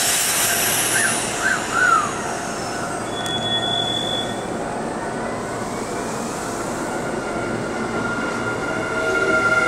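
Kintetsu 9820 series electric train moving along the platform close by: steady rolling noise, with a motor whine that climbs in pitch over the last few seconds. A few short high chirps sound in the first two seconds.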